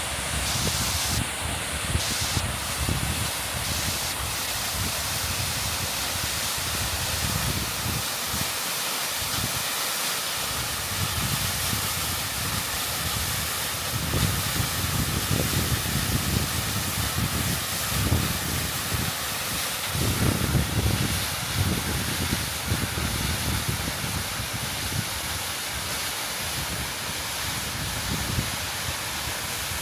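Waterfall crashing down, heard from close beneath the falls as a steady, dense roar of water, with gusts of the wind off the falls buffeting the microphone every so often.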